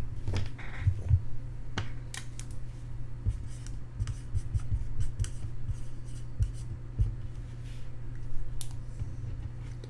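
Scattered light clicks, taps and rustles of small objects handled at a desk, over a steady low hum.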